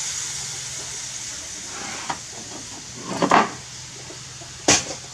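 Food frying in a pan on a gas burner, a steady hiss that fades away. About three seconds in there is a brief clatter, and near the end one sharp knock.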